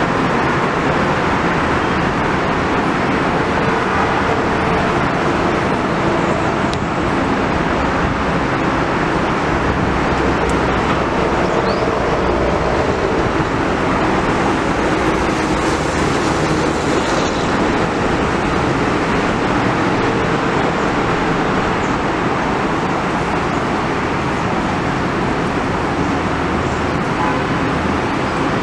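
Metro-North M8 electric multiple-unit train creeping slowly into the station: a steady, even rumble of its motors and wheels with a faint hum.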